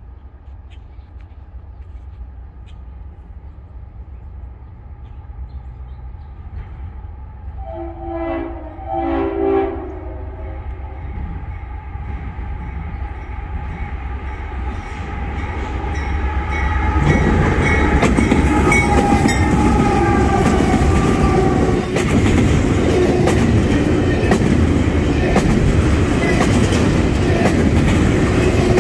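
An approaching Norfolk Southern freight train led by #4006, a GE AC44C6M, grows steadily louder. Its horn sounds two short blasts about a third of the way in. The locomotive passes just past halfway, and the double-stack intermodal cars then roll by, with loud, continuous steel wheels on rail.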